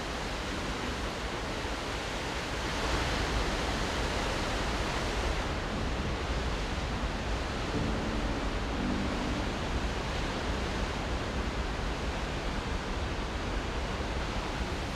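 Waterfall rushing: a steady noise of falling water, slightly brighter around three seconds in and changing in tone about five seconds in.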